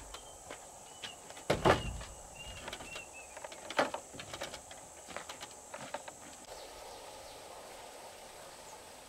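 A few scattered knocks and clacks, the loudest about a second and a half in and another near four seconds, with a handful of short high chirps in the first three seconds; the knocks stop after about six and a half seconds.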